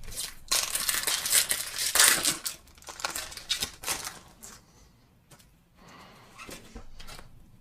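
A foil Pokémon booster pack wrapper crinkling and tearing open, with loud crackling for about four seconds, followed by quieter handling of the cards.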